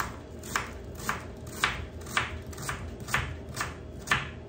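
Kitchen knife chopping garlic on a wooden cutting board, a steady run of sharp knocks about two a second.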